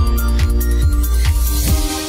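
Electronic dance music with a heavy bass line and an even beat, a little over two beats a second. In the second half a rising noise sweep builds, and the bass drops out near the end.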